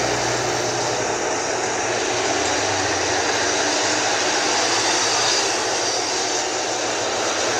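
Steady rushing jet-engine noise of a Boeing 737 airliner landing and rolling out on the runway, with a faint low hum beneath.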